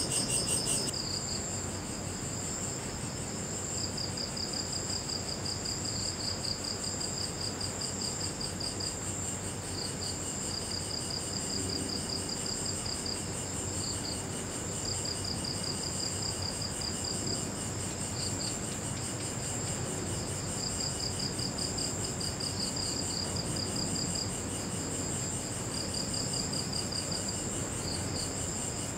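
Night insects trilling: one steady high trill, with another insect's rapid pulsed calls coming in trains that start and stop every second or two. The chorus changes about a second in.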